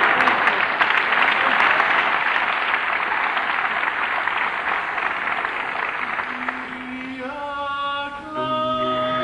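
Audience applause, slowly dying away over about six seconds. Then a four-man vocal quartet starts singing a cappella: one held low note, joined about a second later by the other voices in full chords that change in steps.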